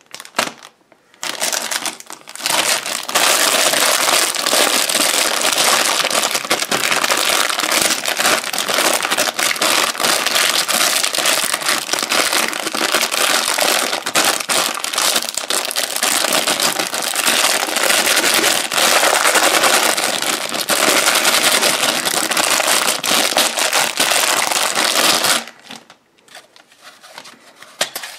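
Plastic toy packaging crinkling and crackling loudly as it is handled and torn open by hand, starting about a second in and stopping a few seconds before the end, after which only light handling clicks remain.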